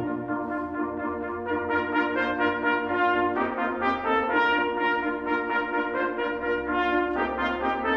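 Brass ensemble playing held chords, trumpets on top over trombone and horn, the chords changing every second or so with little deep bass underneath.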